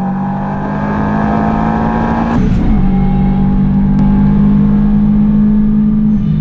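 Subaru Impreza rally car's turbocharged flat-four engine pulling hard under acceleration, heard from inside the cabin, its pitch climbing steadily; about two and a half seconds in it drops sharply for an upshift, then climbs again, with another drop just before the end.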